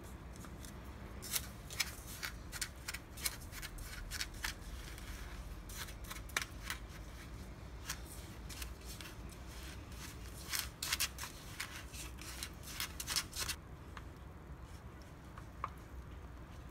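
Plastic spoon scraping and clicking against the inside of a paper cup while a thick mixture is stirred and mashed. The quick scrapes come in two spells, with a few quieter seconds between them.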